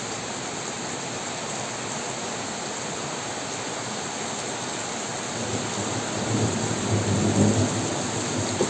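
Heavy rain falling in a steady hiss during a storm. About two-thirds of the way through, a low rumble swells, peaks and eases off.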